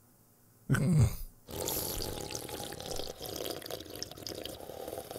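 A short sound falling in pitch, then about four seconds of steady bubbling, slurping liquid noise: a cartoon character drinking noisily from a glass.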